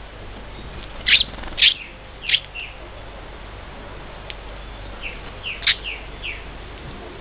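Finches giving short, sharp, downward chirps: three loud ones about half a second apart a little after a second in, then a looser run of quieter chirps around five to six seconds in.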